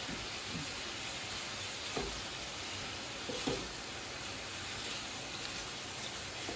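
Shrimp, broccoli and green onions sizzling in oil in a wok as they are stirred together, with a few light knocks of the utensil against the pan, the loudest about two and three and a half seconds in.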